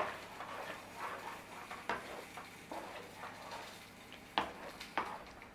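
Spoon stirring a thick curry in a pan: a few sharp taps and scrapes of the spoon against the pan, one at the start, one about two seconds in and two close together near the end, over a faint steady simmer.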